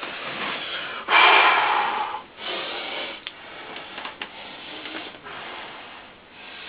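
A man breathing hard through pain, a series of loud, noisy in-and-out breaths with no words; the loudest comes about a second in. He has a screwdriver stuck through his finger.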